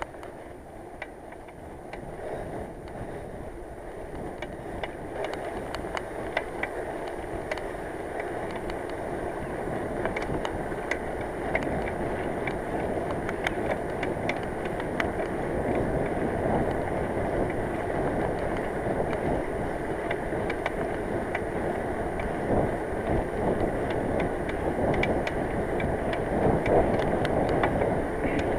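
Bicycle being ridden along a road: steady wind and tyre noise that grows gradually louder as the bike picks up speed, with scattered sharp clicks.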